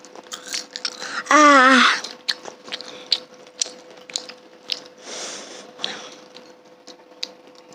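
Close-miked chewing and biting of fried tapioca balls: many small wet mouth clicks and crunches, with one short voiced hum about a second and a half in.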